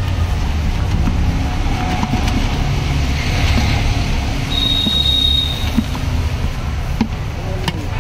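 Steady low rumble of street traffic, with the dry rustle and scrape of puffed rice being stirred by a spoon in a plastic tub. A high steady tone sounds for about a second just past the middle, and two sharp clicks come near the end.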